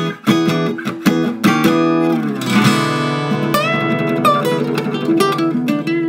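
Background music on acoustic guitar: quick plucked notes for about the first two seconds, then held, ringing chords.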